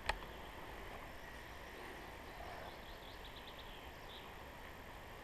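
Quiet woodland ambience with faint bird chirps, including a quick run of short high notes around the middle. A single sharp click comes right at the start and is the loudest sound.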